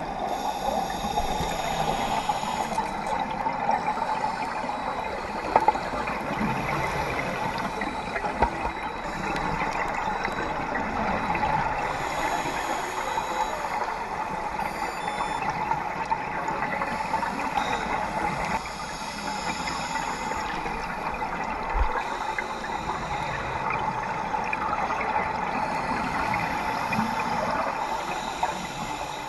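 Underwater ambience through a dive camera's housing: a steady hiss and crackle of rising scuba exhaust bubbles, with a few brief clicks.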